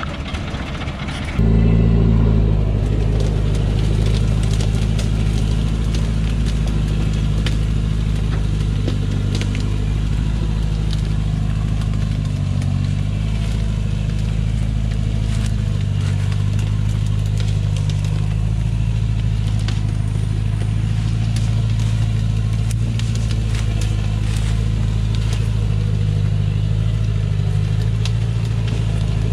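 Light diesel truck heavily loaded with acacia logs, its engine labouring under the load as it pulls up a dirt forest track. The engine gets suddenly louder about a second in and then runs steady and hard, with scattered short clicks and crackles over it.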